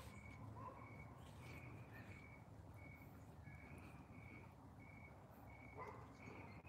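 Near silence, with a faint series of short high chirps repeating evenly, about two a second.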